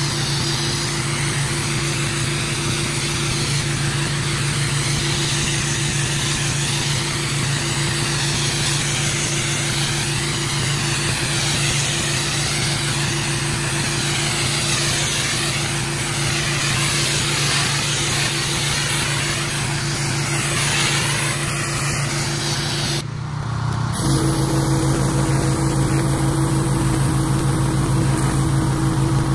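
Gas-engine pressure washer running steadily, with the hiss of high-pressure water spraying onto concrete. Near the end the sound drops out for a moment and comes back louder.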